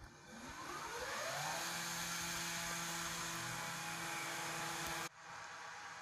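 A machine's motor winding up, its pitch rising for about a second and a half, then running steadily with a loud whir until it cuts off abruptly about five seconds in.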